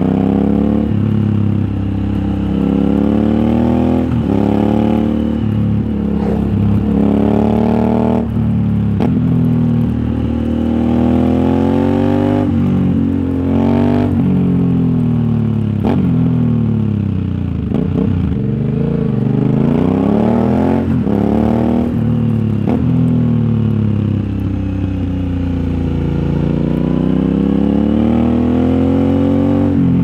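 2021 Aprilia Shiver 900's 896 cc V-twin through an aftermarket RoadsItalia exhaust, under way and repeatedly revving up and then dropping back as the rider works through the gears and the bends. A few short sharp cracks come through here and there.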